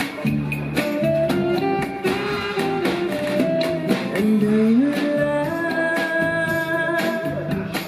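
Live band music: a woman singing long held notes, with a gliding rise about halfway through, over drums and instrumental accompaniment.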